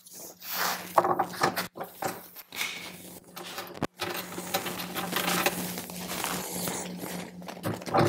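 Cordless screwdriver running steadily to drive a saddlebag lid's handle screw back in, with scattered clicks and rattles of the screw and lid; the motor stops near the end.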